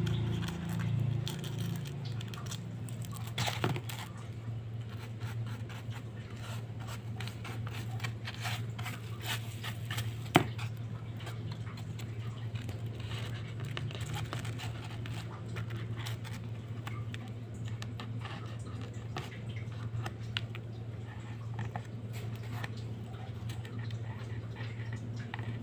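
Light scratching, crinkling and tapping as a sand-art card is worked by hand: backing paper picked off with a pin and coloured glitter sand pinched and sprinkled onto the sticky areas, over a steady low hum. A sharper click stands out about ten seconds in.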